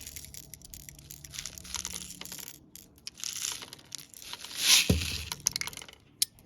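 Clicks and rustling from a CO2 BB pistol magazine being handled while a fresh CO2 cartridge is loaded into it, with a short, louder hiss and thump a little before five seconds in.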